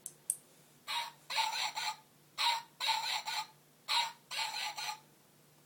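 A recorded rooster crow played three times in quick succession from a handheld sound device, each crow a short note followed by a longer broken one. A brief click comes just before the first crow.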